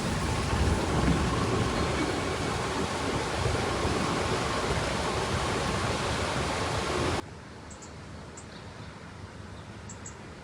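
Loud, steady rushing of wind and water on a boat under way, with a low rumble beneath. It cuts off abruptly about seven seconds in, leaving a quieter background with a few faint high chirps.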